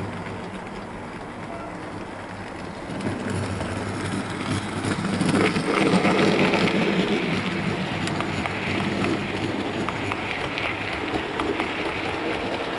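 Bachmann OO gauge model train, a Caledonian Railway 812 class locomotive hauling coaches, running along the layout track: a low motor hum with a patter of small wheel clicks. It grows louder from about three seconds in and is loudest around six seconds in as the train passes closest.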